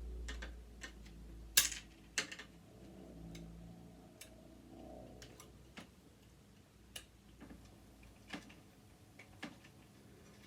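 Irregular light clicks and taps of a screwdriver and small metal parts being handled while a sewing machine is taken apart. The two loudest clicks come about one and a half and two seconds in.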